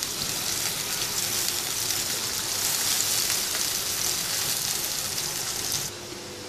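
Chopped onions sizzling and crackling in hot oil in a pan. The sizzle cuts off abruptly near the end, leaving a quieter hiss.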